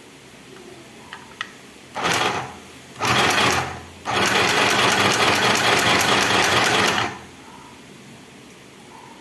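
Compact portable mini sewing machine stitching in three runs: two short bursts, then a steady run of about three seconds. Two small clicks come just before the first run.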